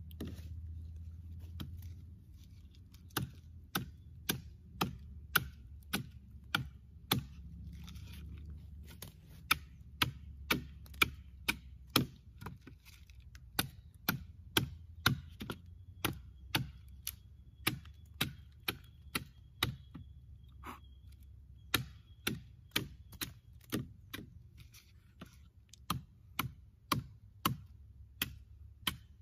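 Hatchet chopping a wooden stick braced against a log: a run of sharp, regular blows, a little under two a second, broken by a couple of short pauses.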